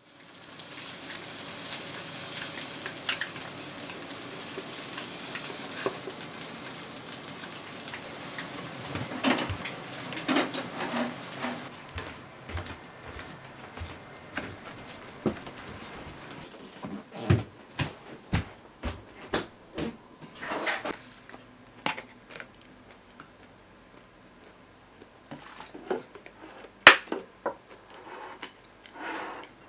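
Stir-fry sizzling in a frying pan while it is stirred with chopsticks, with small clicks of the chopsticks against the pan. The sizzle stops about twelve seconds in, and scattered clinks and knocks of dishes and utensils follow, with one sharp clink near the end.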